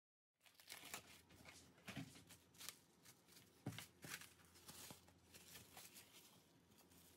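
Cling film crinkling and crackling under a hand as it is pressed and smoothed over a tray, in faint, irregular rustles and clicks that start abruptly about half a second in.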